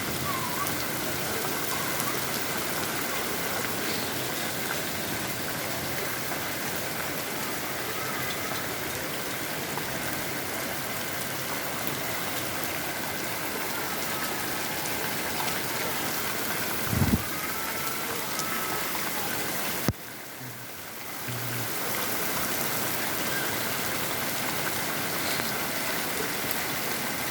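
Heavy rain pouring down in a steady hiss. There is one low thump a little past halfway, and the sound drops away suddenly for a second or so before the rain comes back.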